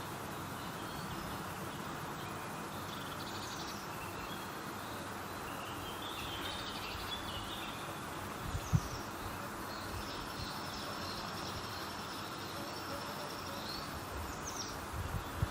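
Small birds chirping and calling in short scattered phrases over a steady background hiss, with a single soft low thump a little past halfway.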